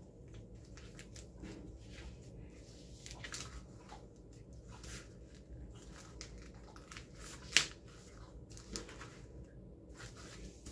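Faint rustling and crinkling of a plastic page protector and paper as a photo flip-flap is worked through a slit cut in the protector. There are scattered light ticks and one sharper click a little past the middle.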